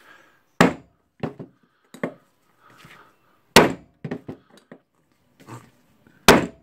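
A hand hammer striking metal parts of a dismantled Makita HR2811FT rotary hammer to knock the internal hammer parts out of the cylinder. There are three hard, sharp blows about three seconds apart, the last the loudest, with lighter knocks and clinks between them.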